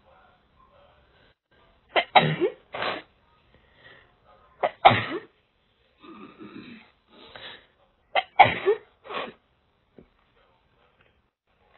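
A person sneezing three times a few seconds apart, set off by a nasal swab up the nose, with quieter breaths between the second and third sneeze.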